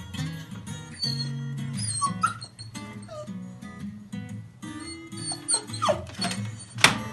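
Dog whining in short rising and falling whimpers, with one sharp loud yelp near the end, over background guitar music.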